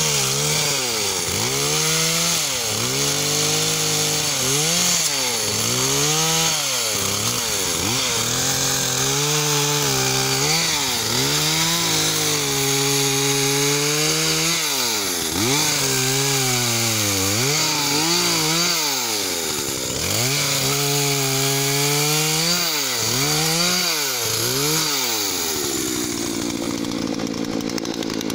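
Husqvarna 236 two-stroke chainsaw cutting through branches, the engine's pitch dipping and climbing back over and over. About two seconds before the end it drops to a steady idle.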